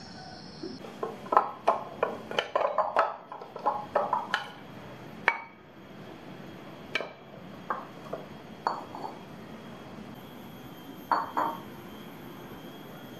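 Ceramic bowls and dishes clinking and knocking as they are handled and set down. A quick run of clinks comes over the first few seconds, then a few single ones, two of them ringing briefly.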